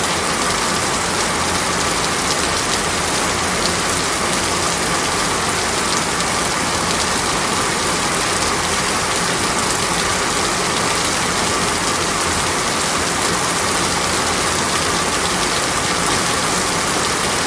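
Steady rain pattering on a window pane, an even hiss of drops with scattered faint ticks.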